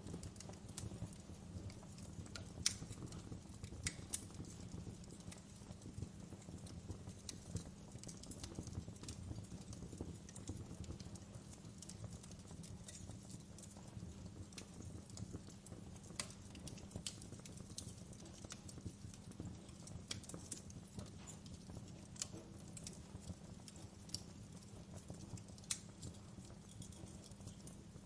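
Wood fire in a fireplace crackling: scattered sharp pops and snaps, irregularly spaced, over a steady low rumble of burning.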